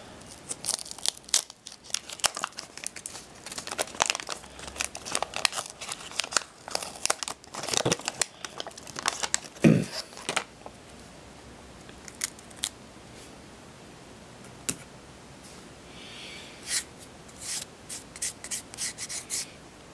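A waxed-paper trading-card pack wrapper being torn open and crinkled: a dense run of crackling for about ten seconds, then quieter, with scattered crinkles near the end.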